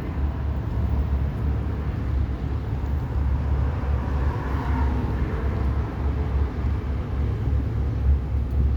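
Wind buffeting the microphone outdoors: a steady low rumble that rises and falls with the gusts.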